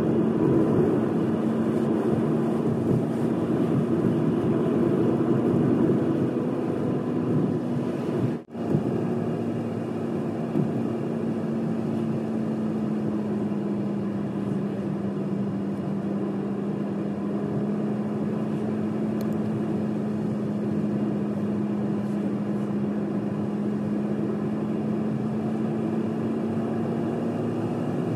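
Car driving at a steady pace: a continuous drone of engine and road noise with a steady low hum. The sound drops out for an instant about eight seconds in.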